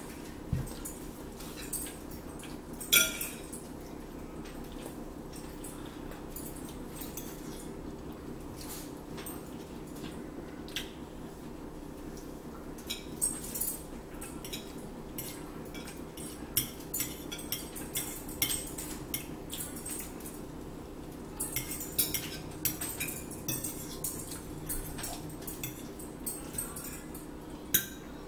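Forks clinking and scraping against dinner plates in short, irregular clicks, the loudest about three seconds in, over a steady low hum.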